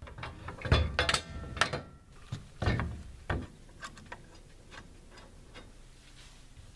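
Clicks and knocks of quick-release bar clamps being ratcheted tight, clamping a board against the steel carriage wheel housings on the sawmill track. The clicks are most frequent in the first three seconds and thin out to faint ticks after that.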